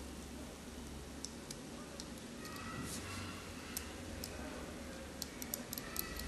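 Faint, scattered light clicks and taps of small phone parts being handled, more frequent near the end, over a low steady hum.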